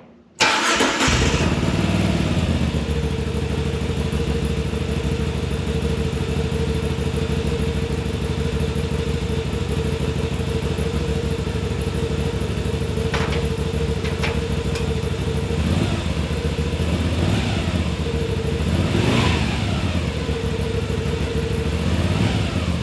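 2021 Moto Guzzi V7's air-cooled 853 cc transverse V-twin, breathing through its stock exhaust, starting up about half a second in and settling into a steady idle. In the second half it is blipped about three times, each rev rising and falling back to idle.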